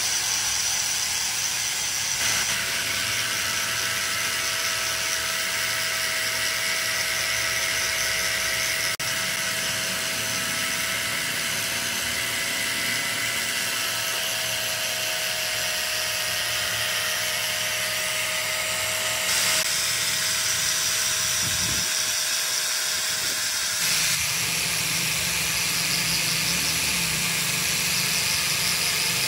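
A small power tool running steadily with a high whine and a dense hiss, of the kind used to buff or grind rubber during a tire patch.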